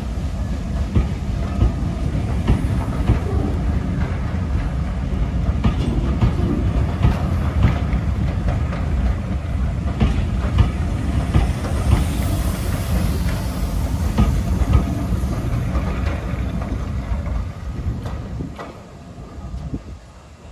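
Passenger coaches rolling past close by, their wheels clattering and knocking over the rails in an irregular rhythm. The sound fades away in the last few seconds as the train clears.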